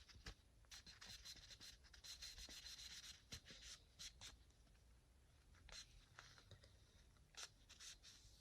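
Faint rubbing with a few light clicks: an engine oil dipstick being wiped clean by hand.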